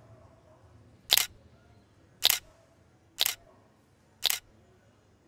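Phone camera shutter sound clicking four times, about a second apart, as selfies are taken.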